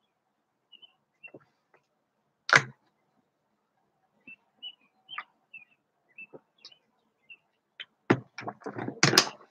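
A mostly quiet room with a single sharp knock about two and a half seconds in and scattered faint, short high chirps. A cluster of louder knocks and rustling near the end.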